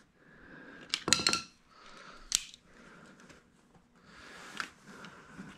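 Small hard plastic parts and hand tools being handled while a furnace condensate trap is fitted. A quick cluster of clicks and clacks comes about a second in, then a single sharp click a little after two seconds and another near five seconds, with a soft hiss between.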